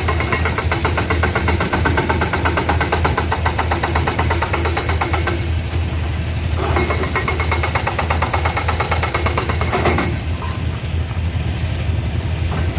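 Komatsu PC210 excavator's diesel engine running steadily under work, with a fast, even rattling clatter over it that eases off twice.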